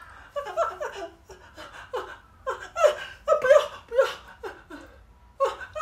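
A person laughing in a string of short bursts, loudest about three seconds in.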